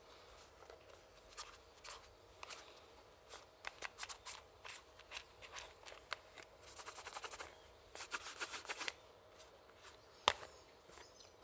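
Terry-cloth rag rubbing and wiping over a hard plastic RC-car servo tray in quick scratchy strokes, with small clicks of the part being handled. A single sharp click about ten seconds in is the loudest sound.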